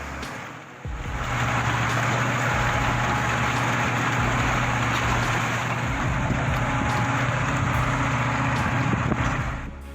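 Heavy vehicle engine running steadily under load, with a constant low hum. It starts abruptly about a second in and cuts off shortly before the end.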